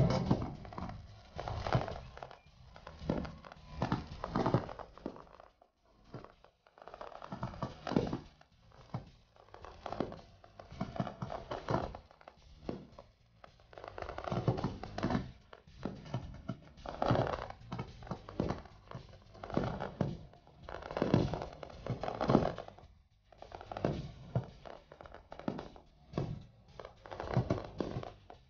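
Fireworks display: aerial shells bursting in a string of sharp bangs, coming in irregular clusters every second or two.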